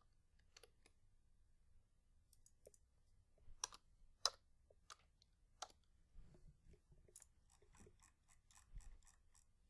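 Near silence with faint, scattered small clicks: a few sharper ones in the middle and a quick run of them, about four a second, near the end.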